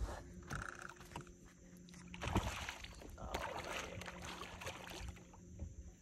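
Faint sounds of water and movement aboard a small aluminium fishing boat, with a few light knocks and a low, steady hum underneath.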